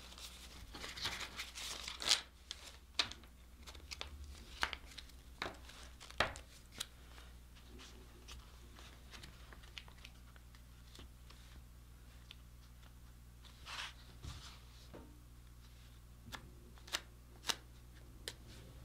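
Paper banknotes rustling and crinkling as a folded stack of fourteen dollar bills is handled and slid into a leather money clip wallet. The handling noises come thick for the first several seconds, then thin out to occasional soft rustles, with two sharp clicks near the end.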